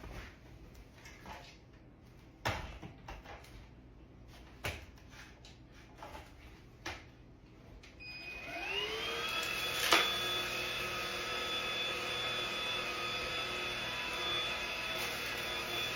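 A few scattered clicks and knocks of handling, then about halfway a cordless stick vacuum's motor switches on, its whine rising as it spins up and then running steady on its lowest setting. A sharp click comes shortly after it starts.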